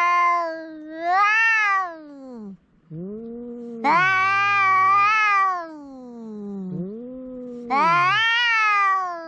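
Domestic cat meowing loudly again and again: four long drawn-out calls that rise and then fall in pitch, with quieter, lower meows in the gaps between them.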